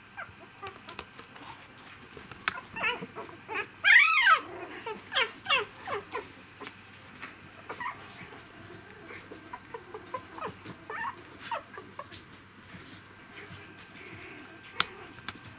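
Three-week-old poodle puppies whining and squeaking. One loud rising-and-falling squeal comes about four seconds in, then a run of shorter squeaks and fainter whimpers, with scattered light clicks.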